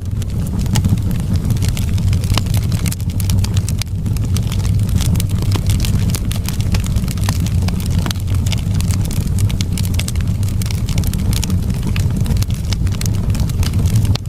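Wood fire burning in a fireplace: a dense, irregular crackle of small sharp pops over a steady low rumble of the flames.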